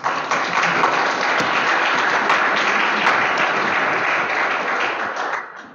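Audience applauding, a steady patter of many hands clapping that tapers off near the end.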